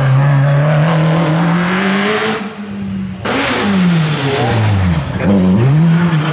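Single-seater racing car engine under load, its revs climbing steadily; it cuts off abruptly about three seconds in. A second single-seater's engine then follows, its revs dropping steeply and rising again twice as it comes through the bend and pulls away.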